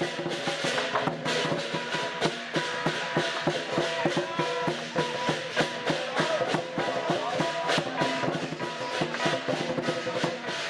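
Chinese procession music: drums and cymbals struck in a rapid, steady beat, with a melody playing over them.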